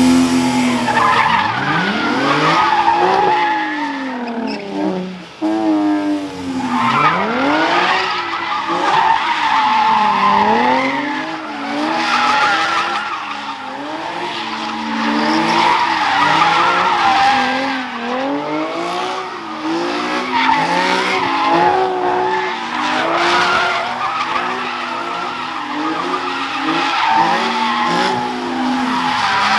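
A car doing donuts: its engine revs rise and fall about once a second while the tyres squeal and skid.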